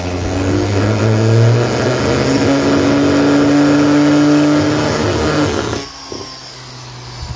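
Homemade brushless motor, an old motor armature spun by a Hall-sensor-switched DIY driver, running at high speed with a loud steady hum and a whine that rises slightly. About six seconds in the sound drops off sharply and a quieter hum carries on.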